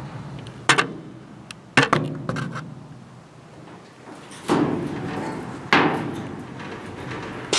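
Sheet-metal panels being bumped and knocked, giving about six sharp clanks spread over several seconds, each trailing off in echo.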